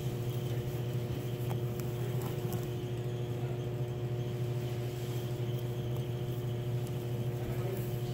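A steady low machine hum with a few faint ticks over it.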